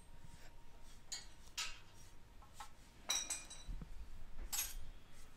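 Scattered light metallic clinks and clicks of tools and engine parts being handled, with one brighter, ringing clink about three seconds in.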